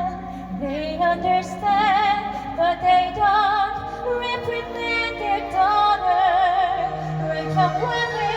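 A woman singing held notes with a wide vibrato over a soft accompaniment of sustained low notes.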